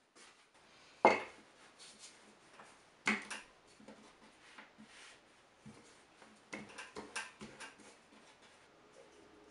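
Wooden rolling pin knocking and rolling on a wooden tabletop as dough is rolled out by hand: a few sharp knocks, the loudest about a second in, with quieter clatter and rubbing between.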